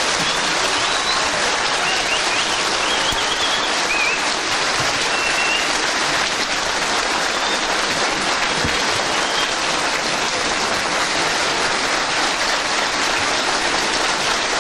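Audience applauding steadily, a dense clapping that holds an even level throughout.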